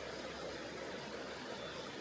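Tonghou River, a mountain stream, flowing and rushing over its bed in a steady, even wash of water noise.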